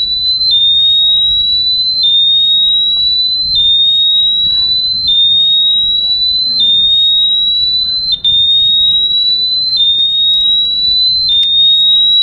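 Built-in 100 dB alarm of an Abus Bordo 6000 folding bike lock going off. It is a loud, piercing single tone that creeps up in pitch over about a second and a half, drops back and repeats, then stops suddenly.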